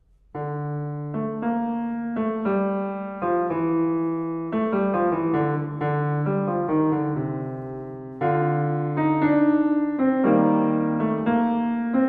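Solo piano playing a classical piece, starting about half a second in, a steady run of separate notes and held chords, with a louder chord about eight seconds in.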